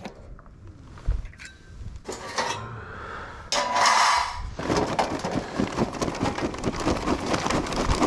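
Charcoal briquettes clattering as they are poured into a metal chimney starter: a dense run of clicks and knocks through the second half. Before it come a few separate knocks and a short scraping burst.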